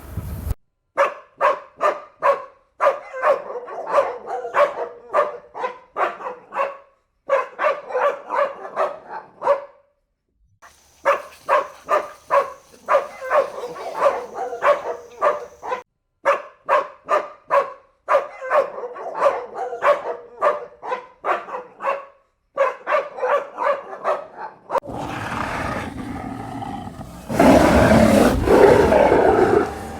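Dog barking in quick runs, about two to three barks a second, with short breaks between the runs. Near the end the barking gives way to a loud, rough noise without separate barks.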